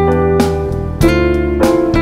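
Instrumental background music over a held bass, with a new note or chord struck every half second or so.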